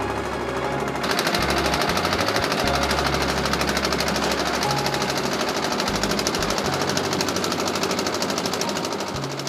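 Concrete mixer running with a fast, even mechanical rattle that comes in loudly about a second in.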